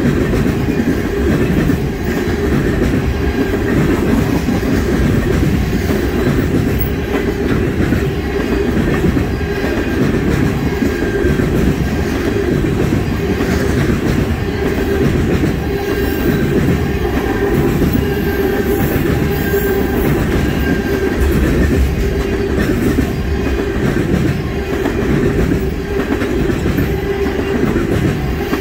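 Freight train of tank cars rolling past close by: a steady rumble of steel wheels on rail with a rhythmic clickety-clack over the rail joints, and faint wheel squeal now and then.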